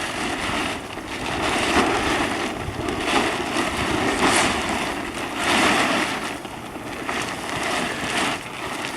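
Wind gusting, a rushing noise that swells and eases several times.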